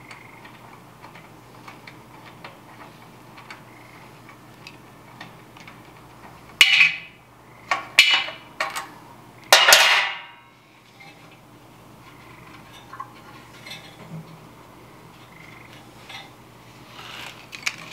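Wrench and metal parts clinking and scraping against an old oil burner's steel housing while its oil pump is unbolted: light ticks of the tool working, then a few loud metallic clanks and scrapes between about seven and ten seconds in.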